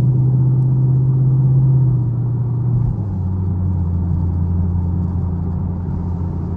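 Chevrolet Camaro SS V8 engine running steadily under way. About three seconds in its note steps down abruptly to a lower steady pitch.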